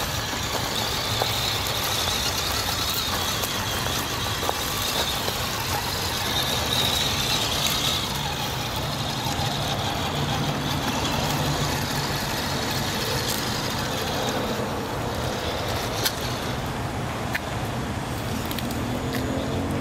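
Traxxas TRX-4 Sport RC crawler driving over wood-chip mulch: its electric motor and drivetrain running steadily, with a few sharp clicks from the tyres on the chips.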